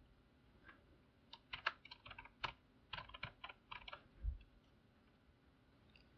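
Typing on a computer keyboard: a quick, uneven run of keystrokes lasting about three seconds, followed by a single soft, low thump.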